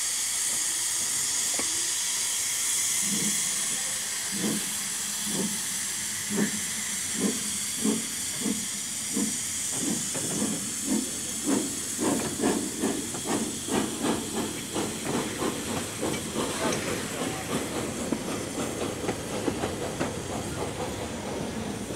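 Reșița-built narrow-gauge steam locomotive hissing steam, then working away: its exhaust chuffs start a few seconds in at about one a second and quicken to two or three a second as it gathers speed.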